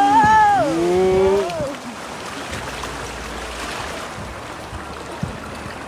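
A drawn-out voice call in the first second and a half, then an even rush of flowing river water, with a single knock near the end.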